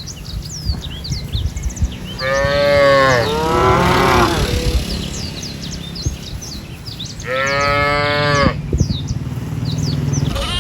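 Cattle mooing: a long two-part moo starting about two seconds in, and another single moo about seven seconds in.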